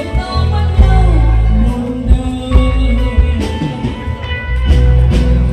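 Loud music with a heavy bass and singing.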